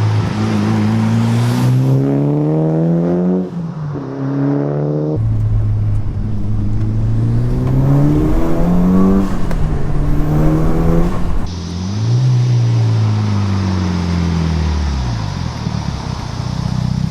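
Mitsubishi Evo 6.5 Tommi Makinen edition's turbocharged 4G63 inline-four accelerating hard, the revs climbing and dropping several times as it goes through the gears, then falling away near the end.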